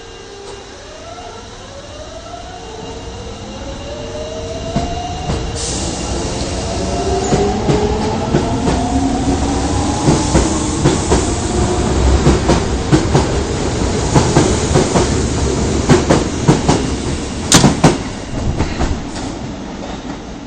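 Osaka Metro 22 series subway train pulling away and accelerating, its traction motor whine rising in pitch. Wheels begin clacking over rail joints as the cars pass, growing louder, with a loud cluster of clacks near the end.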